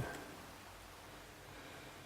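Faint steady hiss of room tone, with no distinct clicks.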